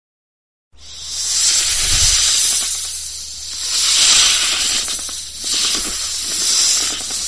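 A snake hissing: long drawn-out hisses that swell and fade about three times, starting just under a second in.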